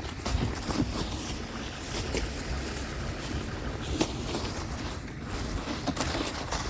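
Footsteps crunching through deep snow in irregular steps, over a steady low rumble of wind on the microphone.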